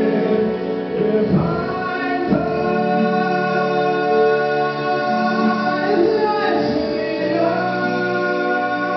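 A solo male voice singing long held notes, moving to a new pitch a few times, over sustained instrumental accompaniment.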